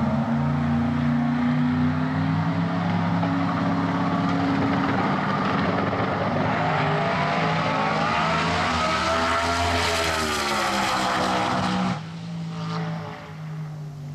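Twin-turbo Ford Mustang drag car at full throttle on a pass, a loud steady engine note whose pitch then rises and falls as it goes by. The sound cuts off suddenly about twelve seconds in, leaving a quieter engine sound.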